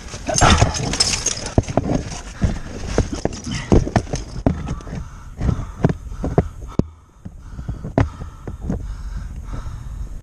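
Boots crunching and scuffing over loose rock rubble, an irregular run of knocks and crunches, with a louder scraping rush about half a second in.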